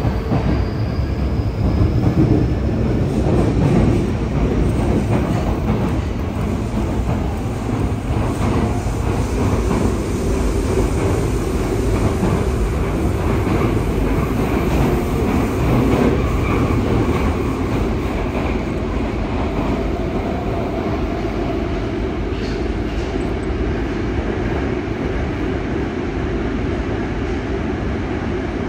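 Yokohama Municipal Subway 3000R-series train running through a tunnel, heard from inside the passenger car: a steady, loud rumble of wheels on rails and running gear.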